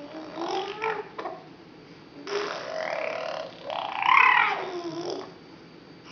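Six-month-old baby vocalizing: several gliding coos and grunts, with a loud high squeal about four seconds in.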